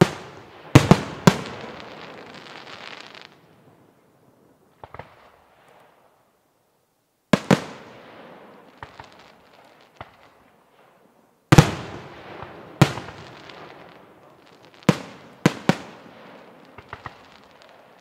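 Aerial firework shells bursting in a series of sharp bangs, each trailing off over a second or two. Three come in the first second and a half, one more follows around the middle, and a closer cluster of five comes near the end, with a couple of faint pops in the gaps.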